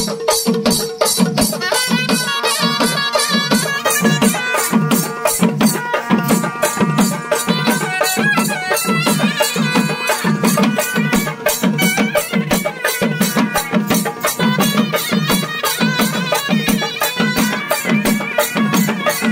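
Live Tamil folk procession music: drums beating a steady rhythm of about two strokes a second, with quicker sharp percussion over it and a melody above a held drone tone.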